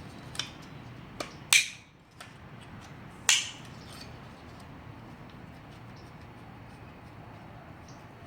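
Sharp plastic clicks and snaps of floodlight lens and reflector parts being handled and clipped into place: two loud snaps, about one and a half and three seconds in, with a few lighter clicks.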